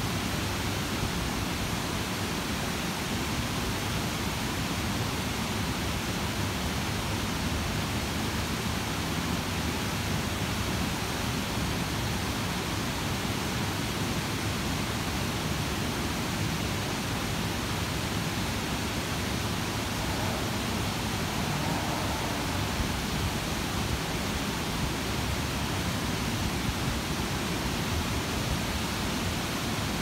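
Water cascading down the many terraced concrete steps of a large sunken fountain: a steady, even rush of falling water.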